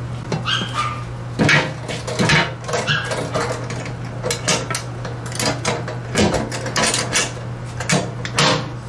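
Aluminum Tusk pannier box lid being set on and latched: a series of sharp metal clanks and clicks, a dozen or so, as the lid seats and the front latch is snapped shut.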